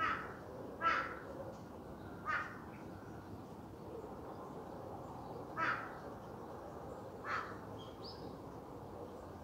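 A crow cawing five times: single short caws at uneven intervals, each falling in pitch. A faint bird chirp comes near the end.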